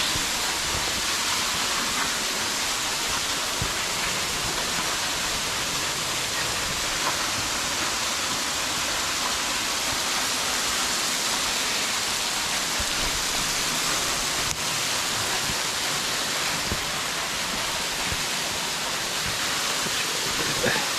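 Angel Falls waterfall rushing: a steady, even wash of falling water.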